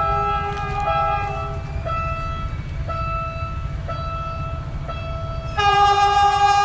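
Diesel train horn of a Philippine National Railways train, sounding in short, changing notes over the rumble of the passing train, then a louder sustained blast near the end.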